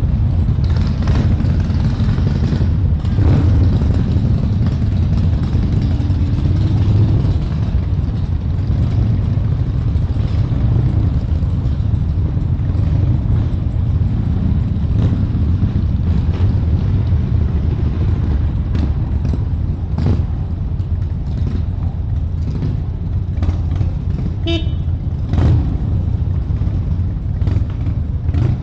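Several V-twin cruiser motorcycle engines idling and pulling away at low speed, a steady low rumble. A short horn beep sounds once, near the end.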